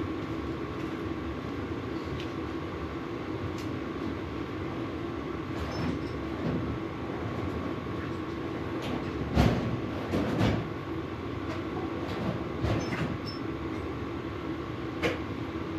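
Steady mechanical hum in a garage, with a few sharp metallic clanks and knocks from tools working on a rusted, seized brake caliper, the loudest about nine seconds in and others near the end.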